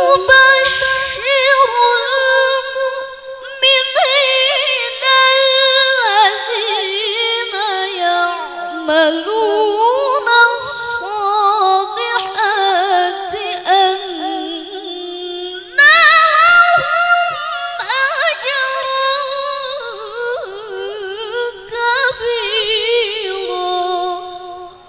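A woman reciting the Quran in the melodic tilawah style, amplified through a handheld microphone: long, high, ornamented phrases with wavering pitch, broken by short pauses for breath. The voice stops just before the end.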